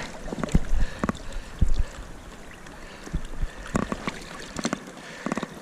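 River water splashing and sloshing around a netted rainbow trout held in the water, with scattered short knocks and bumps from handling.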